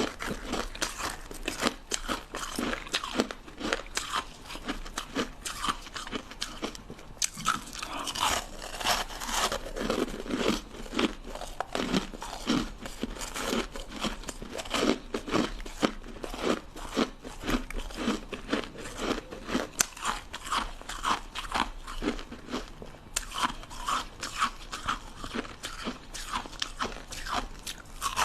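Short sticks of ice being bitten and chewed: dense, rapid crunching and cracking of hard ice, many crunches a second.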